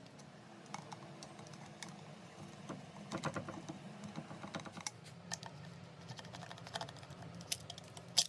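Irregular light clicks and taps, a quick flurry of them about three seconds in and a sharper click near the end, over a faint low hum.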